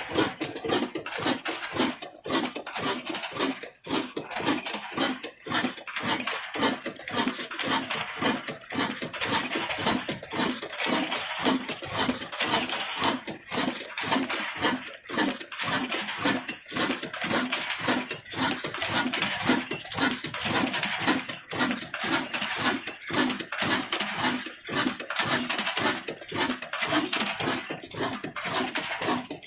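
22 HP stationary diesel engine running steadily while driving a wheat grinding mill, a fast, even beat with a clatter over it.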